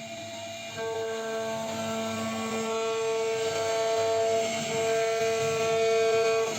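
CNC router running: a steady whine from the spindle over the rushing noise of the bit cutting wood, getting louder about a second in and then holding.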